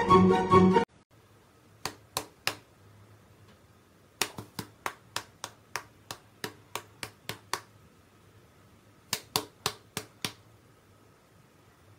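A person snapping their fingers in short runs: three snaps, then about a dozen at roughly three a second, then six more. Background music cuts off about a second in.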